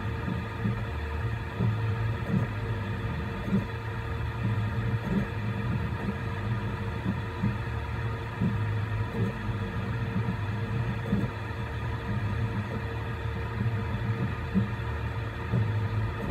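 Voron 3D printer printing: a steady hum from its fans over a low rumble, with short, uneven buzzes from the motors as the print head makes small moves.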